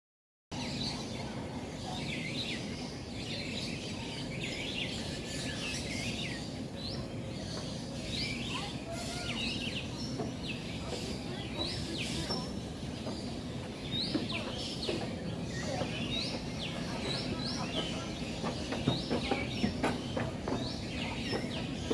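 Many birds chirping and calling, short quick chirps one after another, over a steady low background rumble.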